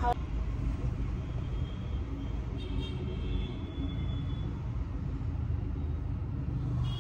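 Steady low background rumble, the kind made by road traffic heard from indoors.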